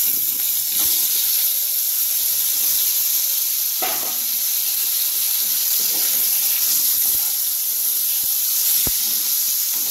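Potato wedges sizzling steadily as they fry in hot oil in a kadai. A few knocks come as more wedges go in and a metal spatula turns them in the pan.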